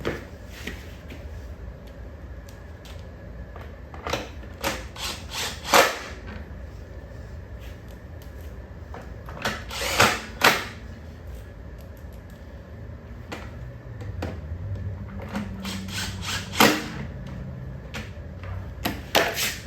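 Scattered clicks, knocks and clatter of hand tools and mower parts being handled during reassembly of a push mower, with a low hum for a few seconds past the middle.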